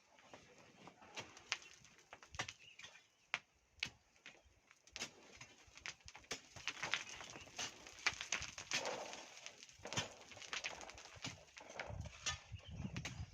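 Irregular sharp knocks and clicks of hand tools and stones striking during hand-digging of volcanic sand, growing busier about halfway through. A low rumble starts near the end.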